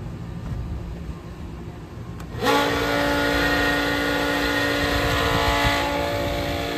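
Motor and fuel pump of a kidney-loop filter cart switched on about two and a half seconds in, then running with a steady hum, pumping diesel through a water-absorbing filter.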